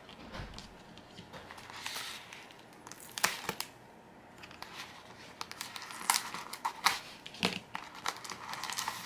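Plastic bubble mailer crinkling and rustling as it is handled and opened, with several sharp clicks and snaps through the middle and latter part.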